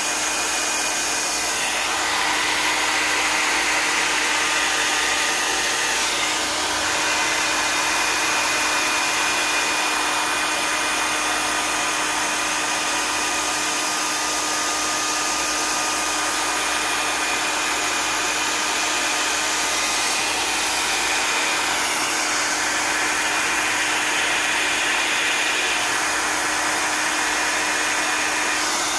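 Handheld hair dryer running steadily: a constant rush of air with a steady hum beneath it. The tone of the air shifts now and then as the dryer is moved and angled over the wet canvas.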